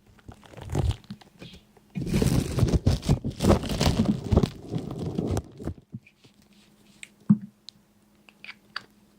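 Dry crunching and crinkling, dense from about two seconds in to about five and a half seconds, then thinning to scattered sharp clicks.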